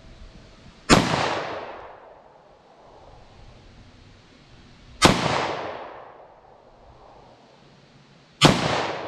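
Three 9mm shots from a Taurus G2C subcompact semi-automatic pistol, about four and three and a half seconds apart, each followed by a fading echo lasting about a second.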